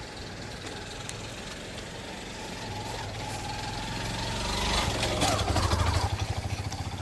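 A small motorcycle engine approaching and passing close by. It grows louder to a peak about five seconds in, where its rapid firing pulses stand out, then eases off.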